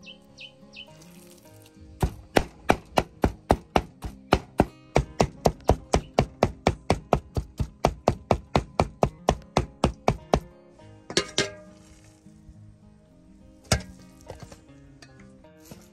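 A cleaver chopping raw pork and prahok on a wooden chopping board: a fast, even run of knocks, about four a second, starting about two seconds in and stopping about ten seconds in, then a few single knocks near the end. Background music plays underneath.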